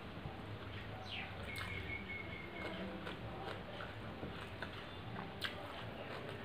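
Fingers mixing rice with fish curry on a metal plate: soft wet squishes and light clicks. A brief high chirp-like tone is held for about a second near the start.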